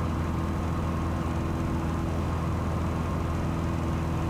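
Cessna 182's piston engine and propeller droning steadily in cruise, heard from inside the cabin as an even, low-pitched hum.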